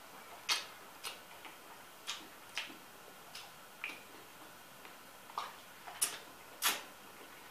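Close mouth sounds of a person eating: about ten sharp, wet smacks and clicks of chewing, at uneven intervals.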